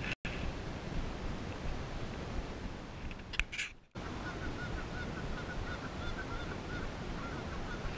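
Geese honking at a distance, a run of short repeated calls in the second half, over a steady rushing background noise. The sound drops out briefly twice.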